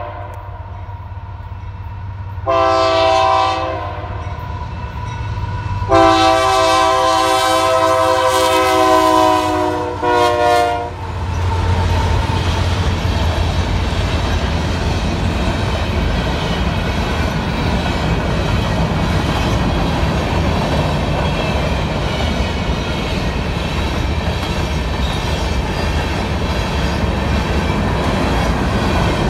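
Locomotive horn sounding several notes at once: a short blast about two and a half seconds in, a long blast of about four seconds, and a brief final toot, played as a horn show for trackside watchers. After the horn the train passes with a steady rumble and the clatter of wheels on the rails.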